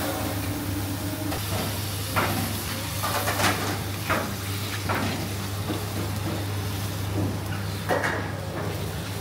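Vegetables sizzling as they fry in a steel pan over a gas burner, with several sharp knocks and scrapes of utensils against the pan. A steady low hum runs underneath.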